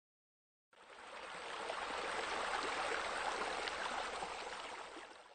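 Splashing, bubbling water, a pool water-feature sound effect, fading in about a second in and fading out near the end.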